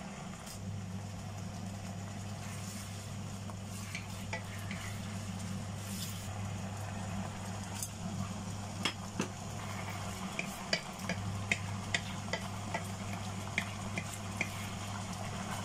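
Chilli bean sauce bubbling and sizzling in a non-stick wok, over a steady low hum. From about nine seconds in, a utensil clicks and scrapes against the pan at irregular intervals as the fish is moved in the sauce.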